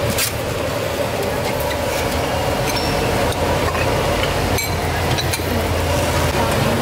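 A steady low rumble, with a few scattered clinks of a metal ladle and wire strainer against steel pots and bowls.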